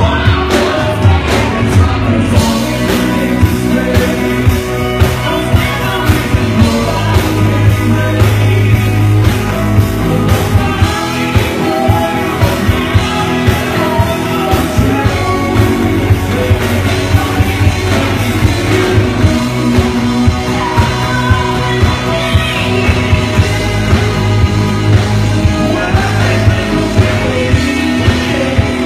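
A live band playing a song with a singer over a steady driving beat.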